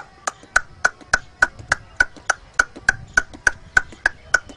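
A man clicking his tongue in a steady, even rhythm, about three and a half clicks a second, imitating the clip-clop of a horse's hooves as it pulls a tonga.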